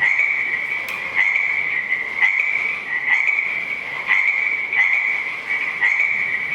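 Recorded frogs croaking in a steady chorus, with a louder pulse about once a second.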